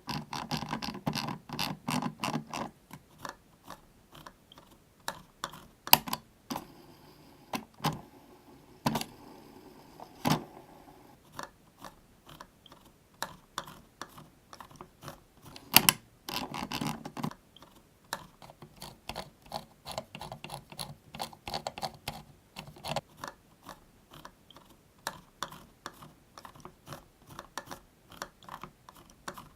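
Computer mouse scroll wheels ratcheting and buttons clicking, recorded close up at high gain. Rapid runs of small ticks from the scroll wheels are broken by a few louder single button clicks.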